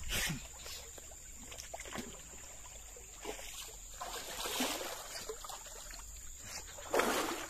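Water splashing and sloshing as a person wades chest-deep through a channel, over the steady rush of water flowing past a concrete sluice gate; the loudest splash comes near the end.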